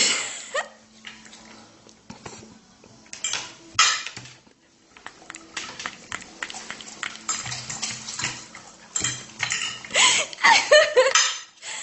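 Scattered clinks and clatters of hard objects knocking together, sparse at first and busier and louder near the end.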